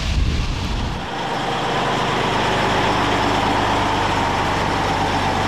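Heavy fuel tanker truck's engine running steadily with a low, even hum, taking over about a second in from a brief rushing noise.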